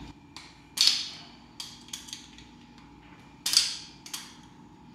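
Sharp metal-on-metal clinks and clacks, about six in all, the loudest about a second in and about three and a half seconds in, as hydraulic roller lifters are worked in and pulled from an LS2 V8 block's lifter bores, several of them stuck.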